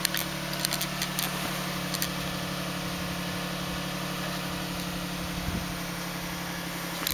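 Toyota Highlander V6 engine idling steadily while it burns off Sea Foam engine treatment, its exhaust smoking heavily. A few light clicks in the first two seconds.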